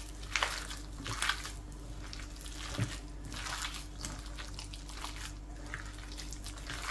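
Gloved hands kneading a wet raw minced-pork mixture in a ceramic bowl: soft, irregular squelches.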